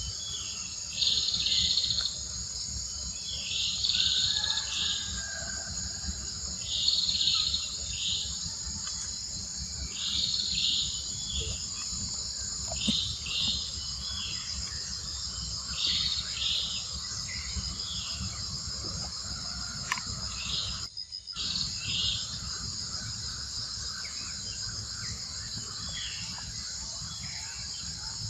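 Steady high-pitched drone of insects, with short high chirping calls repeating every second or two. The sound drops out briefly about three-quarters of the way through.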